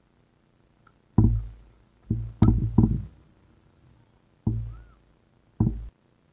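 A series of six low, muffled thumps in about five seconds, each dying away within half a second, with a quick cluster of three a little over two seconds in.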